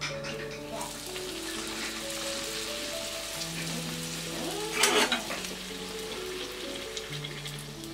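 A small round of bhatura dough deep-frying in hot oil in a small pan, sizzling steadily as it puffs up. There is a brief louder crackle of oil about five seconds in.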